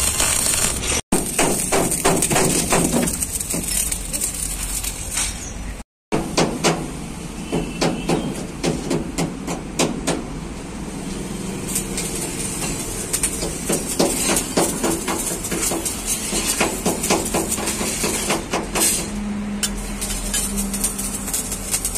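Stick (arc) welding on the steel body of a dump truck: a crackling arc with many sharp metal clicks and knocks. The sound drops out briefly twice, about a second in and about six seconds in.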